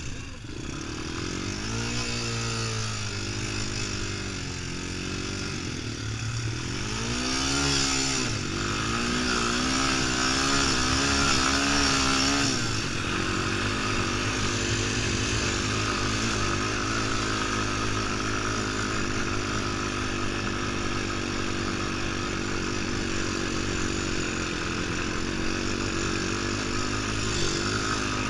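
Sport quad (ATV) engine accelerating, its pitch climbing twice in the first eight seconds or so, then running steadily at speed for the rest.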